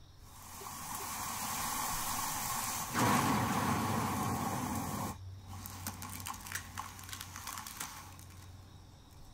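Sound effects for a title intro. A rushing hiss swells over the first three seconds, a louder, fuller rush starts about three seconds in and cuts off suddenly two seconds later, then a scatter of crackles thins out.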